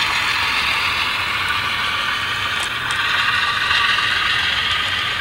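HO scale model freight train rolling past on the layout: a steady mechanical whir from the cars' wheels on the track and the locomotive's drive, with a few faint clicks.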